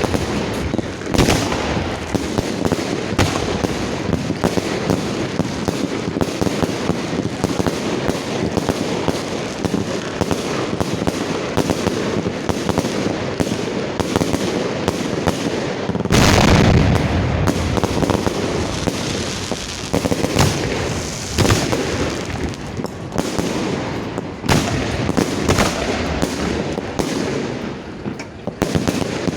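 Fireworks display fired from the launch line: a dense, continuous barrage of shell launches and bursts, with a heavier, louder volley about sixteen seconds in.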